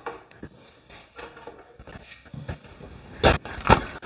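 Scattered light knocks and clicks, then footsteps on a hard floor beginning near the end with two heavy steps.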